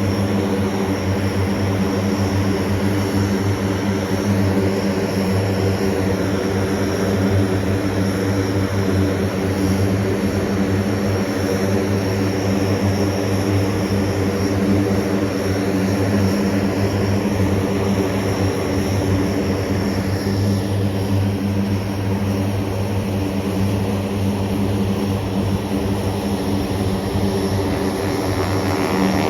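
Propeller aircraft engine running steadily, with a constant low hum and its overtones that neither rises nor falls.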